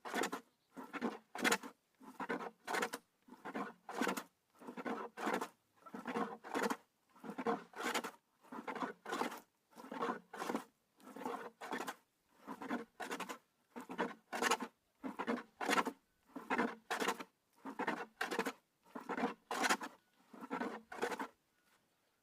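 A hand tool worked back and forth on wood in a steady rhythm of scraping strokes, about one and a half strokes a second, stopping about a second before the end.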